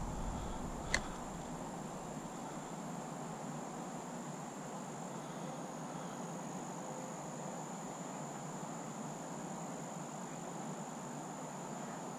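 Steady high-pitched insect trill over quiet outdoor ambience, with a single sharp click about a second in.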